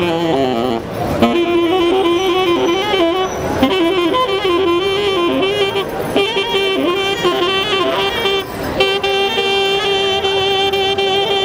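Solo saxophone playing a melody in short phrases with quick runs of notes, then holding one long steady note near the end.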